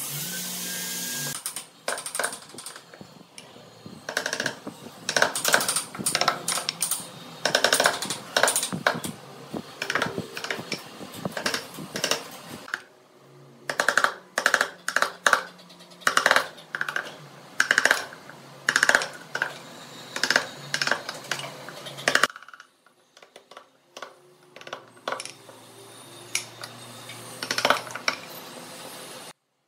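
Wooden mallet striking the handle of a wood chisel as it cuts into a block of wood: sharp knocks in quick runs with short pauses between them.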